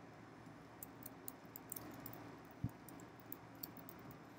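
Faint typing on a computer keyboard: a quick, irregular run of light key clicks from about a second in, with a single dull thump partway through.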